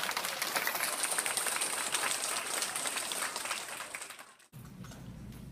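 An audience of schoolchildren clapping, fading out and then cutting off abruptly about four and a half seconds in, leaving a low room hum.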